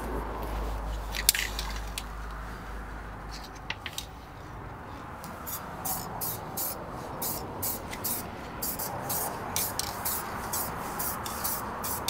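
Aerosol can of heat-resistant paint spraying a thin coat onto a brake disc's hub in short hissing bursts: a few scattered bursts at first, then rapid bursts about two or three a second from about halfway in.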